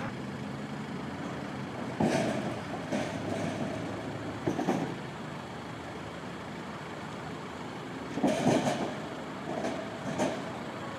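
Steady outdoor street noise with a heavy road vehicle, and short louder sounds about two seconds in, around four and a half seconds, and twice near the end.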